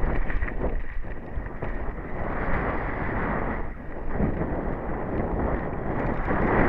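Downhill mountain bike descending at speed on a dry, rocky dirt trail: tyres rumbling over dirt and stones and the bike rattling, with wind buffeting the helmet camera's microphone. A steady rush with many small knocks and jolts.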